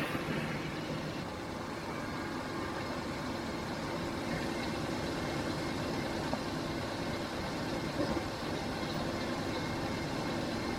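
A motor vehicle's engine running with a steady hum.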